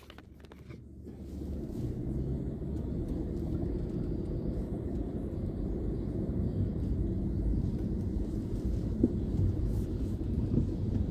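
Low, steady rumble of a car's engine and tyres heard from inside the cabin while driving slowly; it builds up over the first two seconds and then holds steady.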